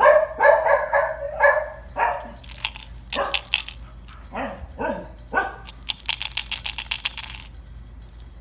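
A dog barking: four quick barks in a row, then a few more spaced barks, some dropping in pitch. Near the end comes about a second and a half of rapid sharp clicking.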